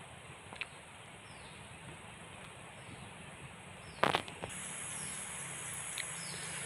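Steady high insect chirring in a coconut grove, with short falling chirps about once a second. A single sharp knock comes about four seconds in.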